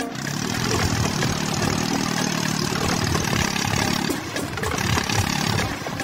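Steady engine-like running of a miniature toy bulldozer tractor as it works.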